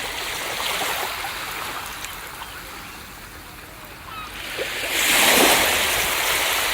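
Ocean surf washing on a beach: a steady rush of water that dips, then a wave breaks loudly about five seconds in and fades away.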